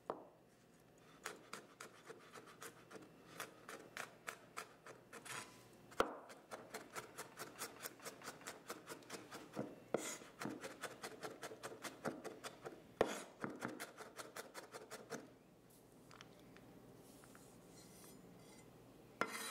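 Chef's knife mincing garlic on a wooden cutting board: quick, regular taps of the blade on the board, about four or five a second, thinning out about fifteen seconds in.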